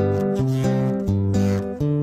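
Acoustic guitar strumming chords in an instrumental passage, the chords changing several times.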